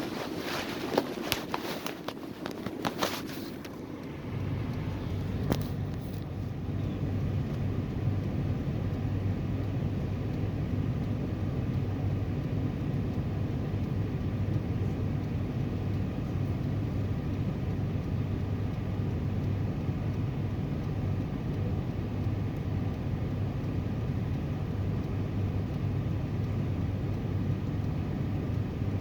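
A few sharp clicks and knocks, then from about four seconds in a car engine running with a steady low drone.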